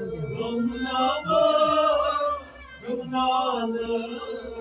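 A man's voice reciting the Quran aloud in a slow, melodic chant: two drawn-out phrases with a short pause about halfway.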